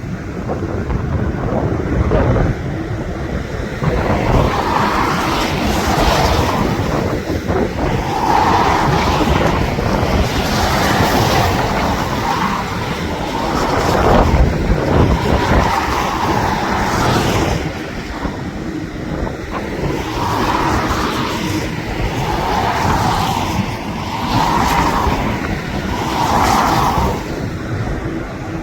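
Jet airliner engines running as a landing aircraft passes, mixed with strong wind buffeting the microphone in gusts.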